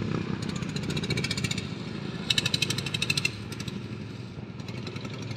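Racing lawnmowers' small petrol engines running, with two loud stretches of rapid rattling firing, each about a second long.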